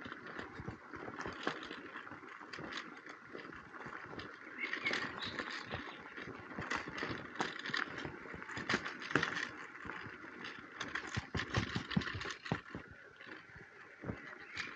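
Bicycle rolling over a rough forest path: a steady tyre noise, broken by frequent irregular rattles and knocks from the bike.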